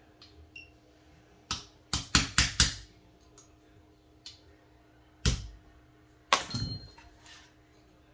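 Sharp metal knocks of a small hammer tapping parts into an AR-15 lower receiver: five quick taps in about a second, then a single tap and a short cluster of taps a little later.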